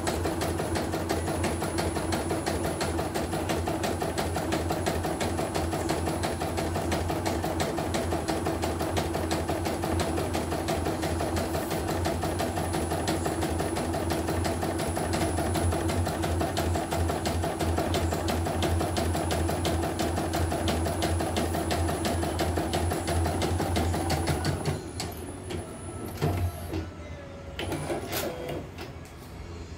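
CNY portable embroidery machine stitching a design at a fast, even needle rhythm, running normally with its newly fitted bobbin case. The stitching stops about 24 seconds in as the design completes, followed by a few light clicks and knocks.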